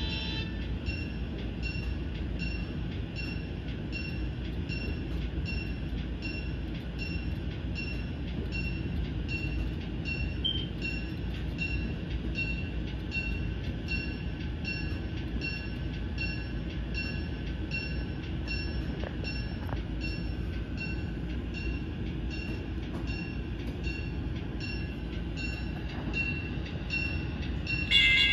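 Sound-equipped model railroad locomotive running: a steady low diesel rumble with a bell ringing evenly, about twice a second.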